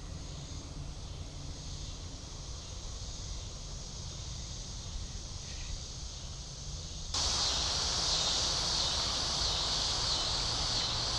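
Steady outdoor chorus of insects with a low rumble underneath on the microphone. About seven seconds in the sound jumps abruptly to a louder, brighter insect chorus.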